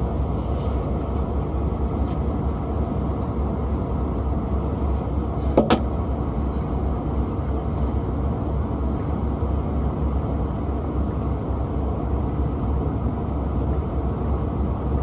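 Steady low rumbling noise, with one short sharp squeak or click about five and a half seconds in.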